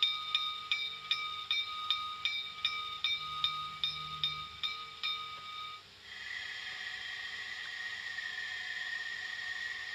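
Sound decoder of a model Saxon IV K narrow-gauge steam tank locomotive, 99 1599-2, playing standing sounds. For about six seconds there is a rhythmic beat of about two and a half pulses a second over a steady tone, then a steady hiss of steam.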